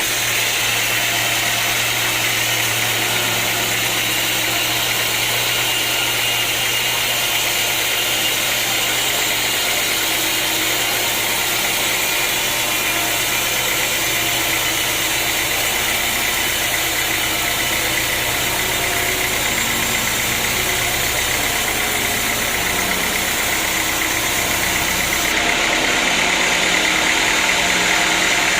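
Sawmill machinery running steadily, a continuous engine-like drone with a high hiss, changing slightly in tone near the end.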